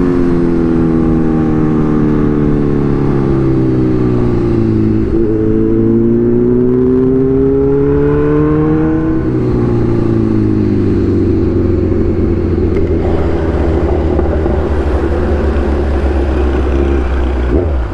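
Kawasaki Z1000 inline-four engine heard while riding. Its note falls for about five seconds as the bike slows, rises again for about four seconds as it accelerates, then settles to a steady lower note for the rest.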